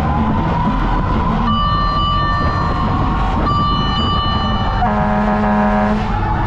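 Fire truck sirens wailing in slow rising and falling sweeps, with two long steady horn tones and a lower, buzzy horn blast of about a second near the five-second mark, over the noise of running engines.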